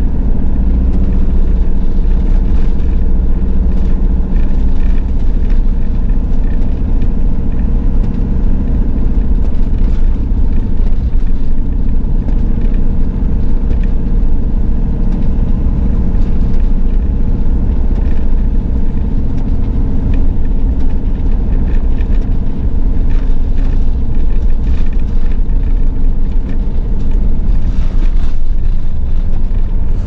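Two-wheel-drive van driving steadily through a road tunnel, heard from inside the cabin: a loud, even rumble of engine and tyres on the snowy road surface.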